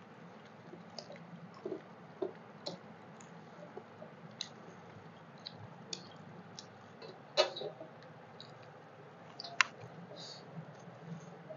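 Eating by hand: fingers squishing rice and curry against metal plates, with soft chewing and scattered small clicks. One louder click comes a little past the middle and a sharp one about two seconds after.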